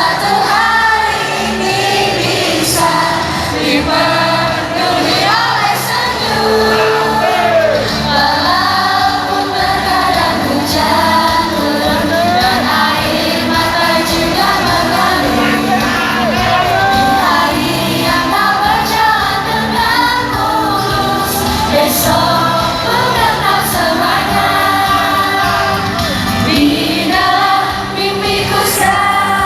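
A live pop song blaring over a hall's PA: a group of women singing in unison over a backing track with a steady beat, with occasional shouts from the crowd.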